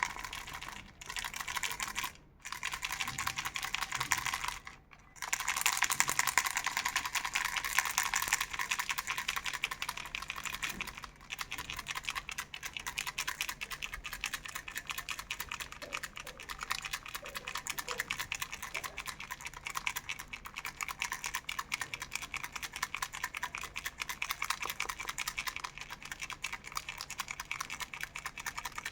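Hello Kitty telephone rattle toy being shaken, a fast, dense clatter of rapid clicks, with two brief pauses in the first few seconds.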